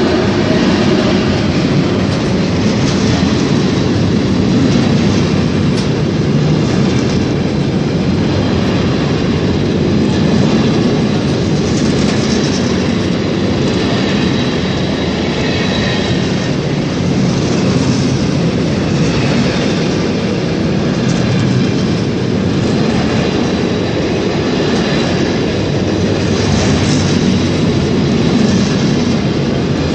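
A freight train hauled by two class 90 electric locomotives passing at close range, its wagons rolling by in a steady, unbroken clatter of wheels over rail joints.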